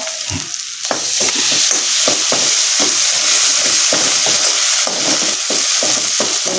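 Hot oil sizzling in a metal kadhai with a tempering (phodni) of mustard seeds, cumin, curry leaves and chilli-garlic paste, as a spatula stirs in turmeric with quick repeated scraping strokes against the pan. The sizzling gets louder about a second in, once stirring starts.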